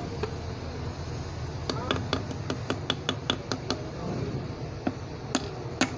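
Hand tools working on an AC compressor piston being fitted into its bore: a quick run of about ten light, sharp metal clicks, about five a second, then two more clicks near the end.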